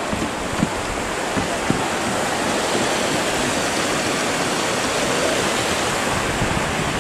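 Shallow, rocky river rushing over rapids in a steady, full rush of water, with a couple of light knocks in the first two seconds.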